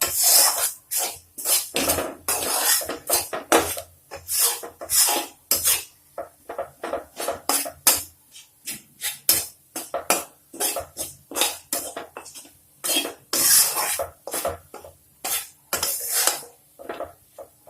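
A spatula stirring and scraping around a pan of ghee-roasted wheat flour, ginger and spice powders, in quick, irregular strokes of about two a second.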